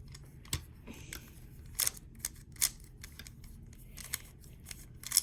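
Layers of a 3x3 Rubik's cube being turned by hand: a string of sharp plastic clicks, irregularly spaced, several seconds of quick face turns.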